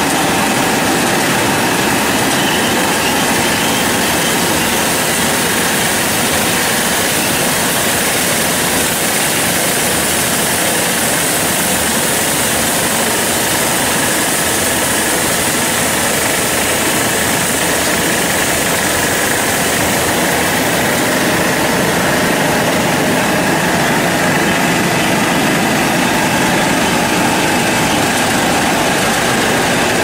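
Industrial air-bubble vegetable washing machine running: a loud, steady mix of motor hum and rushing water from its spray bars and wash tank, with a faint steady whine.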